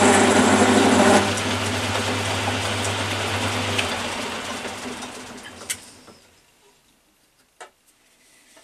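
Metal lathe running with the drill cutting into steel. The noise drops suddenly about a second in, and the machine winds down over the next few seconds to a stop, with a couple of faint clicks near the end.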